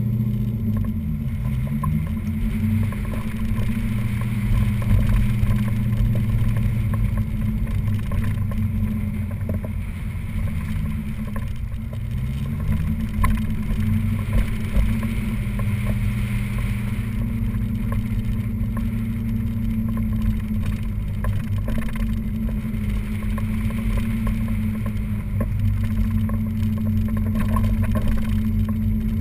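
1986 Chevrolet Corvette's LT4 V8 engine pulling away hard from the start line and then running through an autocross course, heard from a camera mounted outside the car. The engine note rises and falls with the throttle and gear changes.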